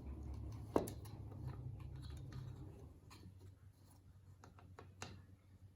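Light clicks and taps of small plastic parts being handled as a car stereo's touch screen is worked out of its case, with one sharper click about a second in. A low hum underneath fades out about halfway.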